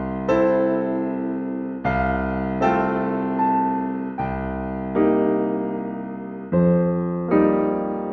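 Background music: slow electric piano chords, each struck and left to ring and fade before the next.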